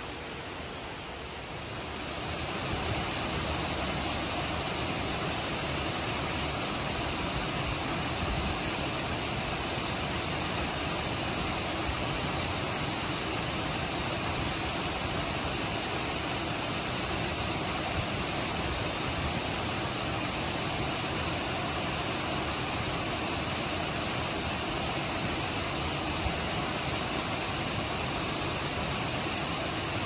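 Steady rush of water from a cascading mountain stream, an even noise with no breaks. It grows louder about two seconds in.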